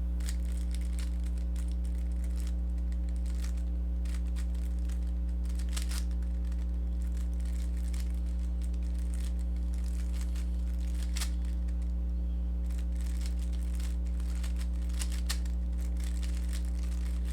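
Rubik's cube layers being turned by hand: faint, irregular plastic clicks and scrapes, over a steady low electrical hum.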